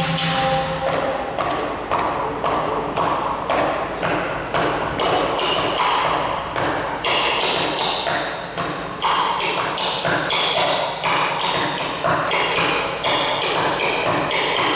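Sundanese dogdog percussion ensemble playing: many drums and struck instruments beating a fast, steady, interlocking rhythm of sharp strikes.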